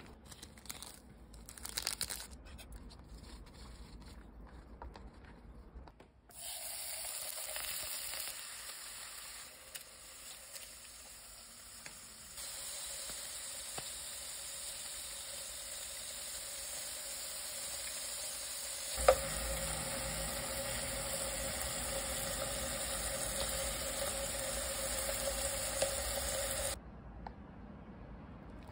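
Beef steak sizzling in a hot frying pan: a steady frying hiss starts about six seconds in and cuts off suddenly near the end, with one sharp click around the middle. Before the sizzle there are a few soft rustles and squishes as a sauce packet is squeezed over noodles.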